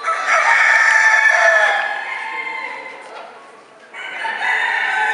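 Rooster crowing: one long crow at the start lasting about two seconds, and another starting about four seconds in.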